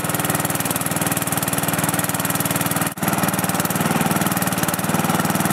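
Lawn Chief riding mower's 11 hp engine running steadily with a fast, even beat, freshly started off the starter, with a split-second break in the sound about three seconds in.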